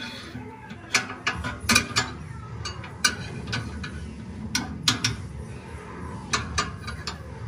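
Steel rib-hanger rod and hanger bar clinking and scraping against the steel drum of an Oklahoma Joe's Bronco drum smoker as they are worked into place. The clicks and knocks come irregularly, loudest just under two seconds in, with more around three and five seconds.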